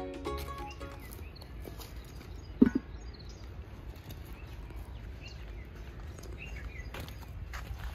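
Birds chirping over a low steady outdoor rumble, with one sharp loud knock about two and a half seconds in and a few lighter knocks near the end as bricks are set down on dry ground.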